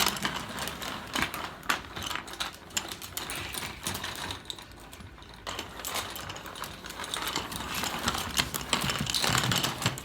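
Chain links clinking and rattling in quick, uneven clicks as a Moluccan cockatoo handles and tosses a bundle of toy chains. A quieter stretch falls in the middle, and the clicks grow busier toward the end.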